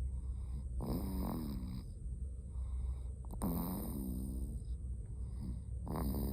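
Loud snoring from someone asleep: three pitched, drawn-out snores about two and a half seconds apart, the last near the end, over a steady low hum.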